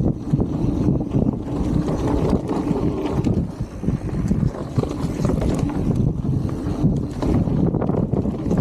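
Mountain bike riding fast down a dirt singletrack: wind buffeting the camera microphone over the rumble of tyres on dirt, with frequent small knocks and rattles from the bike over bumps.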